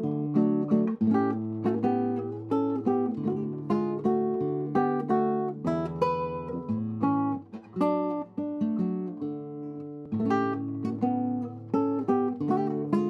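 Nylon-string classical guitar played solo fingerstyle: plucked melody notes over a bass line, with a short dip in the flow about seven and a half seconds in.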